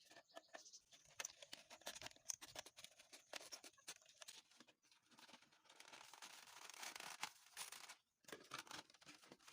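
Plastic bottle being cut and handled: quiet scratchy scraping and crackling with many sharp clicks, broken by a brief pause about eight seconds in.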